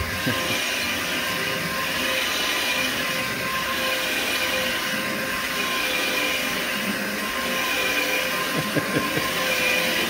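Electric carpet agitating machine running steadily with a constant motor whine, its sound swelling and fading about every two and a half seconds as it is worked back and forth over the carpet. A few light knocks near the end.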